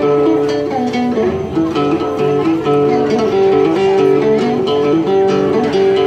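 Đàn tính, the Tày long-necked gourd lute, plucking a melody over long held backing notes: the instrumental opening of a hát then song, before the singing begins.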